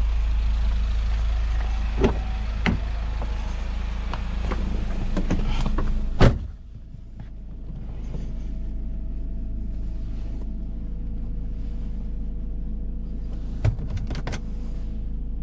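Inside an Alfa Romeo 159 with its engine running: a few sharp clicks, then a loud clunk about six seconds in, after which the hiss from outside drops away and only a low hum is left. Another short cluster of clicks comes near the end.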